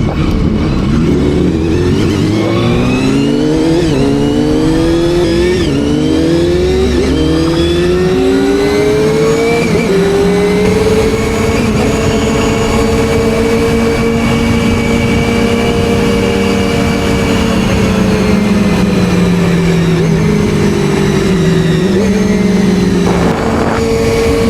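Honda Hornet 250's inline-four engine accelerating up through the gears: the pitch climbs and drops back at each shift, about every one and a half seconds. It then holds a steady, slightly falling note at cruising speed, with a short rev change near the end.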